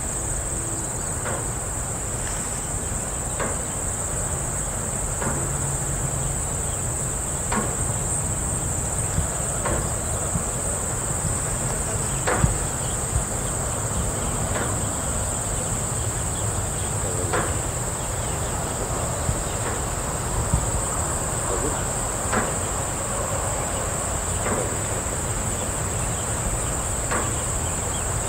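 Farm ambience: a steady high-pitched chorus of insects, with scattered light knocks every second or two over a low rumble.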